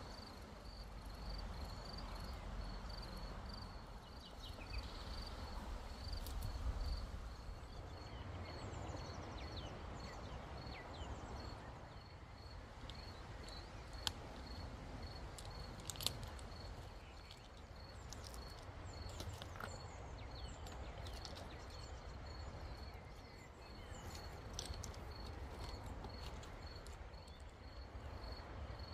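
An insect chirping steadily in short, even pulses, about two a second, over a low rumble that swells around six seconds in. Short bird chirps come and go, and two sharp clicks about two seconds apart near the middle fit stones knocking together as the man works on the stony ground.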